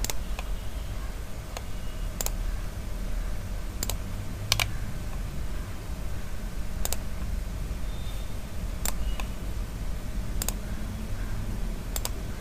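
Single clicks of a computer mouse, about ten of them, irregularly one to two seconds apart, over a steady low hum. They are the clicks of drawing circles in a CAD sketch.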